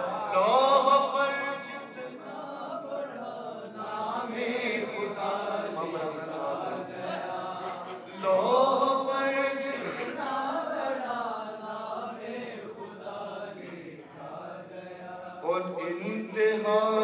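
A man's unaccompanied voice chanting a manqabat, an Urdu devotional poem, into a microphone, in long melodic phrases. The phrases swell louder about a second in, around eight seconds in and near the end.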